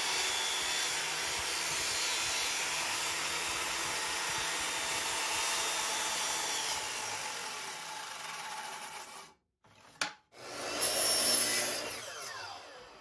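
Circular saw ripping a 45° bevel along a wooden board, running steadily under load for about seven seconds and then winding down. After a short break, a miter saw cuts a piece to length, and its blade spins down near the end.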